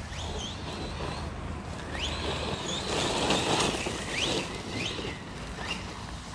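Losi Lasernut RC truck's brushless electric motor whining up in short rising bursts as the throttle is blipped again and again. A louder rush of noise comes about three seconds in.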